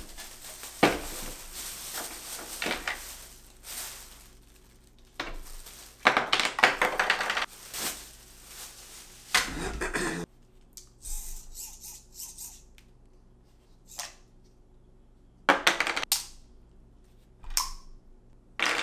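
Hard objects being handled, in irregular bursts of clattering, knocks and sharp clicks with quieter gaps between, over a faint steady hum.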